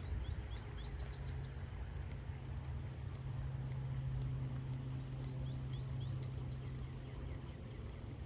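Steady low hum outdoors, with two quick clusters of short high chirps, one near the start and one about two thirds through, over a constant thin high whine.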